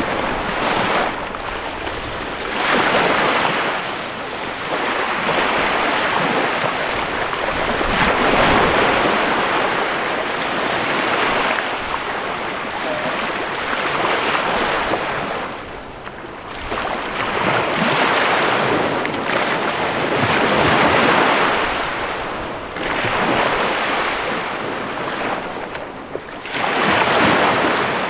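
Small Chesapeake Bay waves breaking and washing up a sandy shore, the surf hiss swelling and easing every few seconds as each wave comes in.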